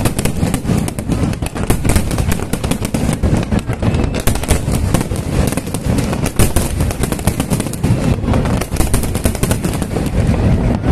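A fireworks barrage: rapid bangs and crackling with low booms underneath, going on without a pause.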